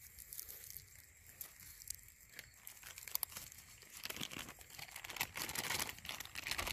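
Rustling and crackling of dry grass and straw, with scattered small clicks, getting louder about two-thirds of the way through.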